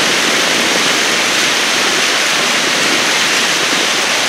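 Steady rushing noise of a motorboat under way: wind and water spray rushing past, with no distinct engine note.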